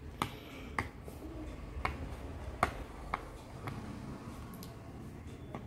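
Silicone pop-it fidget toy being pressed bubble by bubble: a series of about eight short, soft pops at an irregular pace, a fraction of a second to about a second apart.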